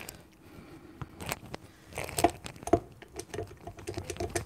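Light clicks and knocks of a spatula and a stand mixer's metal paddle beater against a glass mixing bowl as thick cake batter is scraped off the beater. There are a few separate knocks, then a run of small quick taps near the end.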